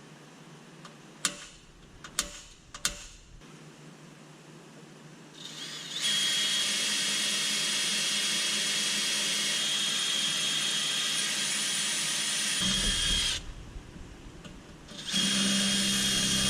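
Electric drill with a 9/64 bit running in two long steady runs with a high whine, a pause between them, drilling the two mounting holes for the A/C hardline support bracket; three sharp clicks come first.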